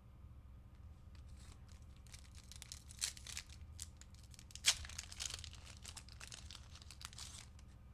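A trading-card pack wrapper being torn open and crinkled by hand: a run of crackling rips over several seconds, with one sharp louder tear about halfway.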